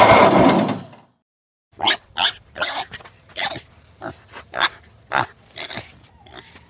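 A loud, rough noise that dies away within the first second, then after a short pause a run of about a dozen short, sharp animal calls, roughly two a second.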